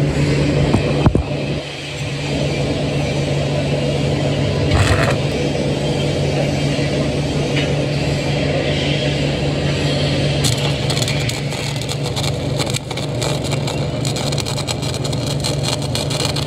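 A steady low hum throughout; about ten seconds in, a stick-welding arc strikes and keeps crackling.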